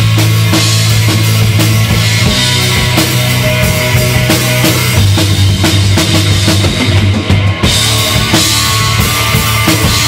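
Live rock band playing loud: drum kit with bass drum and snare hits, electric guitars and a heavy sustained bass line.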